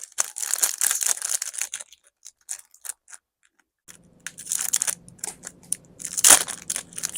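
Packaging crinkling and tearing as a toy is unboxed: dense crackling, then a lull of scattered clicks, then more crackling with one sharp, loud snap near the end.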